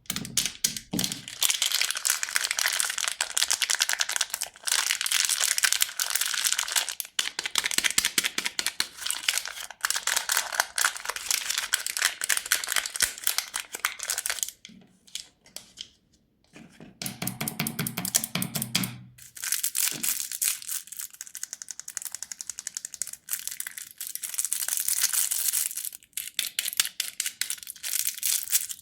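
Plastic candy wrappers crinkling and tearing open, a dense run of crackles with a couple of short pauses. A brief low tone sounds about two-thirds of the way through.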